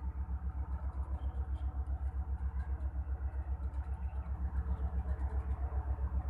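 An engine idling with a steady low throb, about seven even pulses a second.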